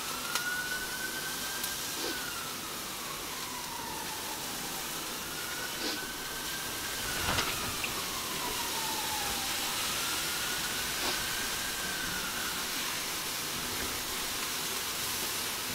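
Mutton sizzling on a hot charcoal grill, with a steady hiss of steam and smoke as the cook's mix is added over the meat. A faint whistling tone slowly rises and falls three times, and a single knock sounds about seven seconds in.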